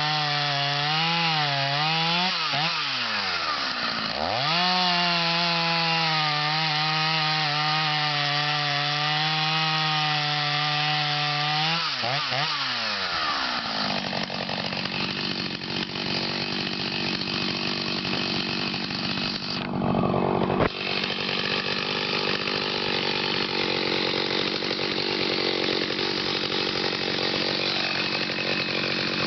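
Stihl 029 Super chainsaw, its two-stroke engine freshly rebuilt after a scored cylinder, running at high revs while cutting wood. The pitch wavers and dips twice in the first few seconds, then holds steady for several seconds. It then drops and gives way to a rougher, noisier sound, with a brief loud burst about twenty seconds in.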